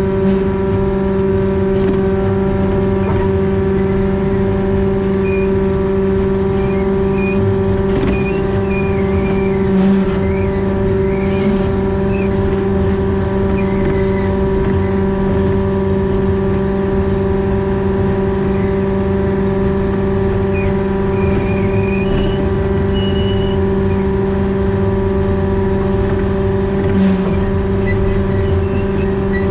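Diesel engine of a narrow-gauge locomotive converted from steam to diesel-hydraulic, running at a steady speed under way, heard from the cab. A few light knocks come through near the middle and near the end.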